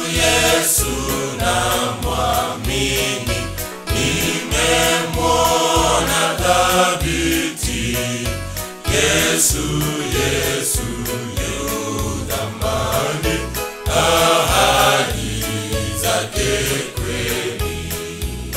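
Male youth choir singing a Swahili gospel song in close harmony, over a steady low beat of about two pulses a second.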